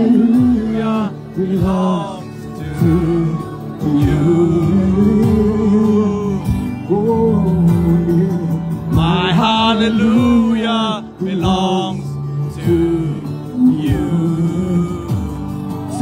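Live worship music: singing over an instrumental backing. The singing is loudest and brightest about nine to eleven seconds in.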